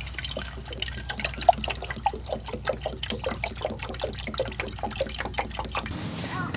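Water pouring from a large plastic jug into a metal camping pot, a steady run of splashes and gurgles that cuts off near the end.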